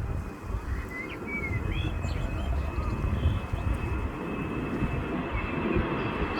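Jet airliner's engines rumbling steadily with a faint high whine, while small birds chirp a few times in the first three seconds.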